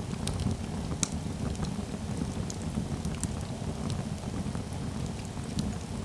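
Crackling-fire sound: a steady low rumble with scattered sharp crackles and pops, the loudest pop about a second in.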